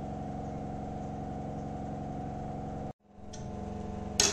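Steady electric hum of a running kitchen appliance, made of several even tones. It drops out briefly about three seconds in, and a single short, sharp knock comes near the end.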